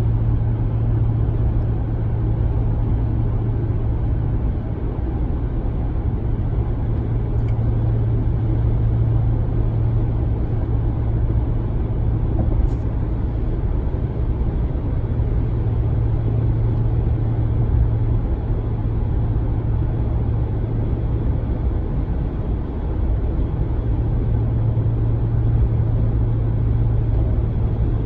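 2019 Ram 1500 cabin drone while cruising in 8th gear: a loud, steady low hum over road noise. It fades for several seconds past the middle, then comes back. The fault persists after the dealer replaced the truck's sound amplifier, and the owner says it is not road noise.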